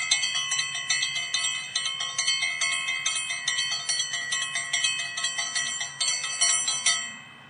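Bright, high bell-like chimes struck in a quick, steady pattern of about four strokes a second, part of a background music track. They stop near the end.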